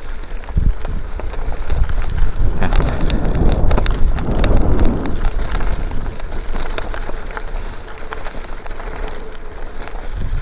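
Wind buffeting the microphone and bicycle tyres crunching over a loose gravel road while riding, with scattered rattles and clicks from the gravel and the bike.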